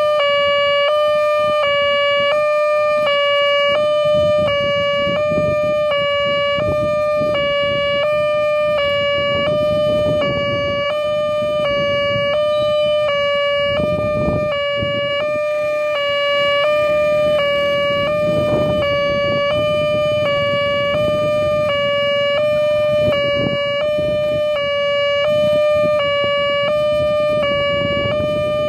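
Railway level-crossing warning bell sounding one steady pitched tone that repeats evenly about once a second, the signal that a train is approaching. A low, uneven rumbling noise runs beneath it.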